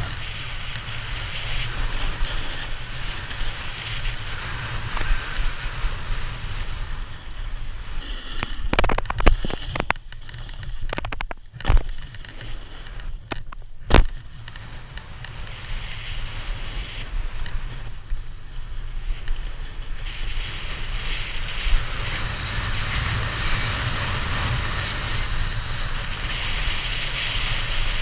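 Snowboard sliding and scraping over packed snow, a steady rushing noise with wind on the microphone, and a few sharp knocks in the middle stretch.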